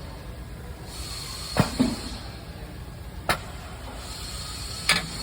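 Four sharp knocks at uneven spacing, two close together early and single ones in the middle and near the end, over a steady hiss with a faint high whine, from work at a solid rivet forming machine.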